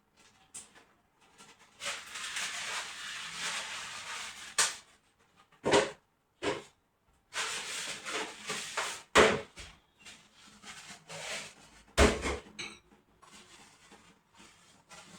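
Household cleaning sounds: two stretches of rustling, scrubbing noise a few seconds long, and several sharp knocks and clacks of things handled and put down, the loudest about nine and twelve seconds in.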